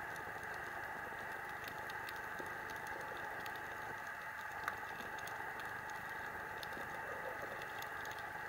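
Underwater coral-reef ambience: a steady hiss with scattered faint clicks and crackles, and one sharper click about four and a half seconds in.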